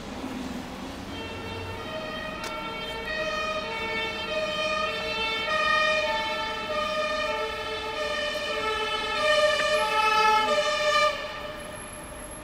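Two-tone emergency-vehicle siren alternating between a lower and a higher note about once a second, growing louder as it draws near and stopping suddenly near the end.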